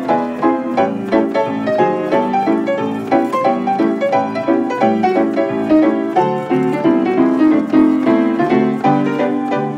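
1926 Kohler & Campbell player piano playing a song from a perforated paper roll, with chords and melody notes struck in a steady, even rhythm.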